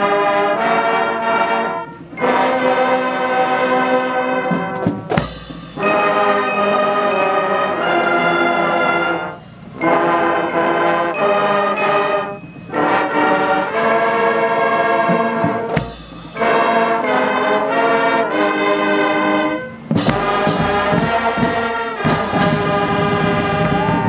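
High school marching band's brass section (trumpets, trombones and sousaphones) playing loudly in phrases with short breaks between them, with a couple of bass drum hits.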